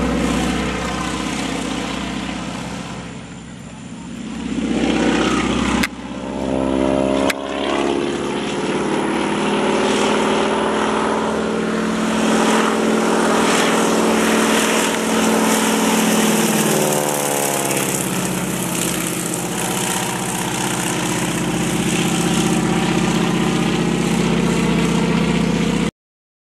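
Radial engine and propeller of a biplane crop duster droning on low passes overhead, fading briefly a few seconds in and twice dropping in pitch as the plane flies past. The sound breaks off abruptly twice at edits and cuts out suddenly near the end.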